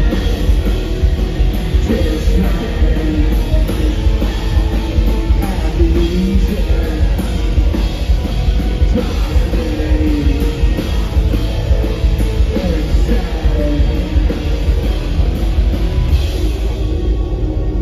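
Live industrial rock band playing loud, with drums, guitar and electronics, and a male singer's voice over it. The music thins out near the end.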